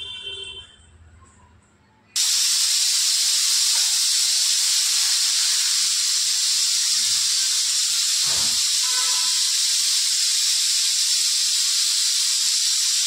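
Compressed air hissing steadily from an air hose, starting suddenly about two seconds in.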